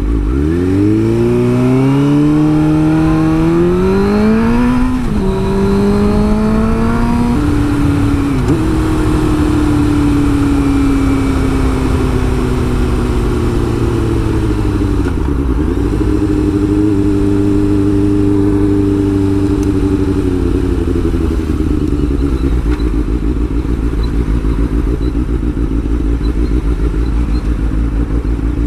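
2005 Suzuki GSX-R600's inline-four engine pulling away hard. Its pitch climbs steeply and drops at two upshifts in the first eight seconds, then eases off and dips about fifteen seconds in. It holds a steady cruise for a few seconds, then falls away to a low idle as the bike stops. A steady low wind rumble on the microphone runs underneath.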